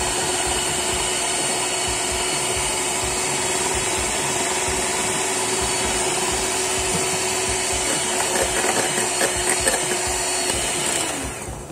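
Electric hand mixer running steadily, its beaters whisking cake batter in a glass bowl. Its motor hum dips in pitch and stops near the end as it is switched off.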